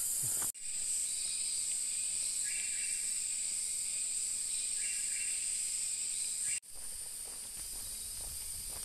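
Rainforest insect chorus: a steady, high-pitched buzzing drone, with two shorter, lower buzzes joining about two and a half and five seconds in. The drone breaks off abruptly about half a second in and again near seven seconds, then carries on.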